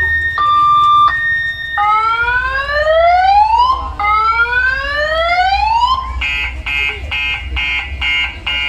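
Loud electronic siren on a sound-system truck, cycling through its modes: a two-tone hi-lo alternation, then two slow rising wails, then a fast pulsing warble at about three pulses a second for the last few seconds. A low steady hum runs underneath.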